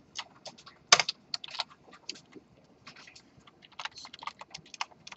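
Typing on a computer keyboard: scattered keystrokes, thinning out around the middle, then a quicker run of keys near the end.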